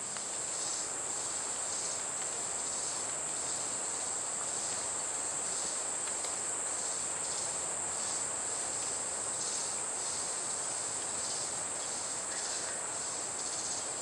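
Rainforest insects calling: a steady high-pitched drone, with a softer pulsing call repeating irregularly about once a second.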